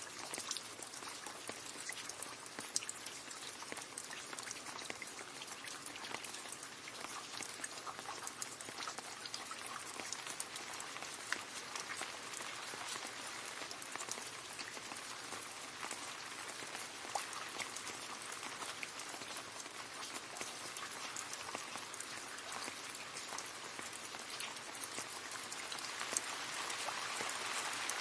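Steady rain splashing into a puddle: a dense patter of drops with a few louder single splashes, growing a little heavier near the end.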